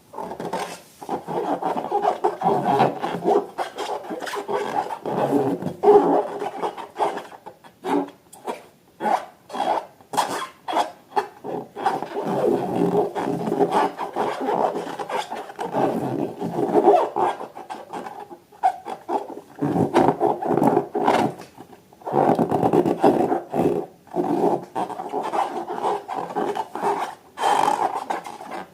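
Rubber balloons being rubbed and squeezed by hand: repeated squeaking rubs mixed with short sticky clicks, in stretches with brief pauses.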